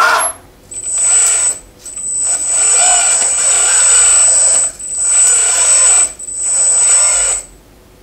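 Electric hydraulic pump of a 1:14 RC skid steer loader whining in four bursts of a second or more, with a thin steady high whistle on top, as the lift arms are lowered and the bucket is tilted.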